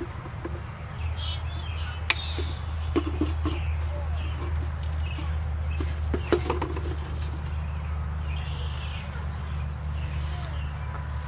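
Hand-handling noises from irrigation pipe and fittings being fitted together, with two sharp clicks and a few soft knocks, over a low steady hum. Birds chirp faintly, and one high note repeats about twice a second.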